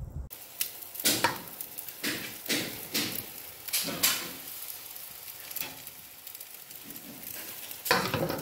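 Jerk chicken sizzling on a charcoal grill: a steady hiss broken by crackles and pops every second or so.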